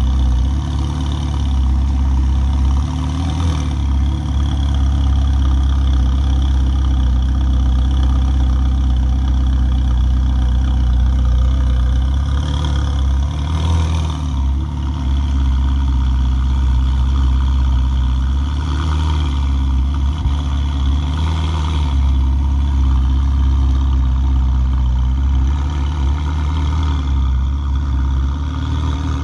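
Ferrari 488 Pista's twin-turbo V8 idling steadily at a standstill, a low even engine note with no revving.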